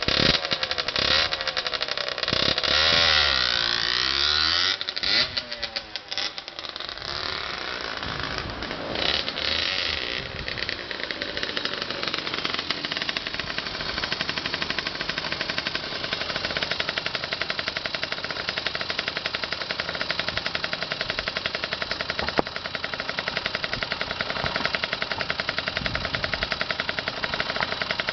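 Honda CRM50's two-stroke single-cylinder engine, with a bore-up cylinder and expansion chamber exhaust, revved up and down several times in the first few seconds. It then drops back and settles into a steady idle.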